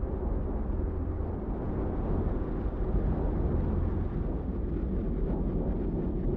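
Low, steady rumbling drone of an animation's ambient soundtrack, growing a little louder midway.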